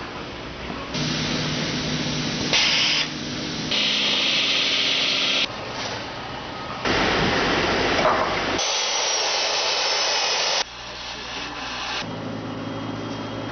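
A quick-cut string of industrial sound effects, each lasting a second or two and switching abruptly: power tools drilling and grinding metal, bursts of hissing, and machine hum.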